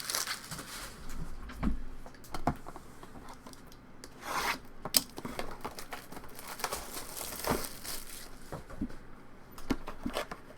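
Trading cards and foil pack wrappers being handled: irregular crinkling, rubbing and tearing, with scattered small clicks.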